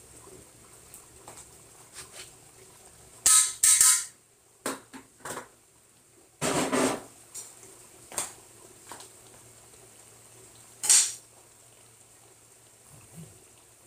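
Kitchen utensils clattering against a metal cooking pot in a scattering of separate knocks and scrapes, loudest about three seconds in, with a longer scrape in the middle.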